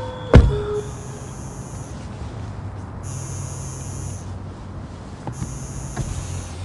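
A machine running in a regular cycle, a hiss over a low hum that repeats about every two seconds. A single sharp knock comes about a third of a second in.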